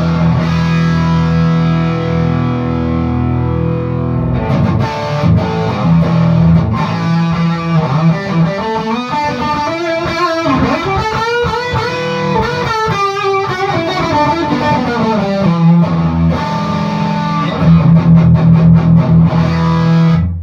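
Electric guitar played through a handmade cathode-biased tube amp (12AX7 in V1, 12AU7 in V2, 12AX7 in V3), with a plenty crunchy overdriven tone. Low chords ring out, then a run of notes glides up and back down in the middle, then low chords again until the playing stops abruptly. This is a play-test of the amp with its newly replaced preamp tube sockets.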